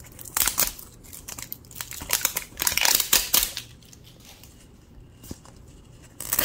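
Crinkling and rustling of an L.O.L. Surprise paper surprise ball's packaging being handled and turned in the hands, busiest in the first half, with a couple of short rustles near the end.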